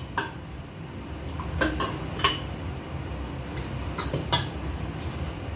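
A spoon clinking against a glazed clay soup pot, about half a dozen short, sharp clinks spread out, over a steady low hum.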